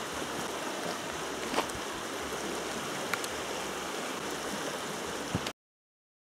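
A mountain river rushing steadily over rapids, with a few faint clicks. The sound cuts off suddenly about five and a half seconds in.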